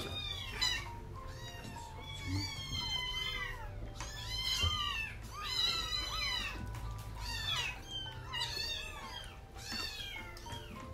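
Several young kittens mewing over and over in short, high-pitched cries that overlap one another.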